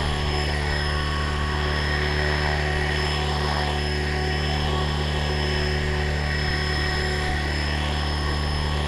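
Small multirotor drone's electric motors and propellers running at a steady speed: an even buzzing whine with several held tones that neither rise nor fall.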